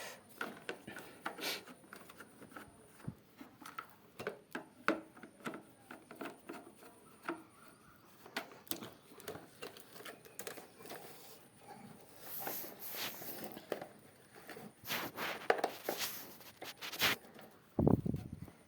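Irregular clicks, taps and scrapes of parts being handled as a wall fan is taken apart, with a dull thump near the end.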